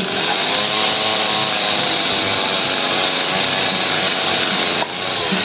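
Chainsaw running at high revs, its pitch climbing in the first second and then holding steady, until the level drops suddenly near the end.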